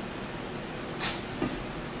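Meal-table sounds over a steady room hum: two brief noises about a second in and a little later, from eating and handling cutlery, plates and napkins.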